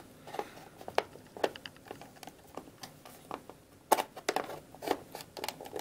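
Hard plastic toy parts of a Hasbro Black Series Rey's speeder clicking and tapping as a small moulded engine piece is pushed and worked against the hull, with a sharper click about four seconds in. The pegs aren't seating, which he takes to be because the part is warped.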